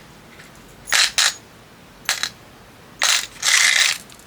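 Small metal jewelry findings clinking and rattling as they are rummaged through by hand. The rattling comes in short bursts, the longest near the end.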